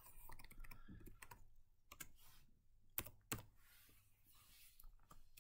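Faint keystrokes on a computer keyboard as a word is typed, with two sharper key clicks about three seconds in.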